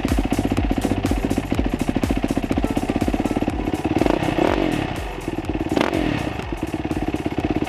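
Single-cylinder four-stroke engine of a Yamaha YZ-F dirt bike idling with a fast, even putter, with two short throttle blips about four and six seconds in.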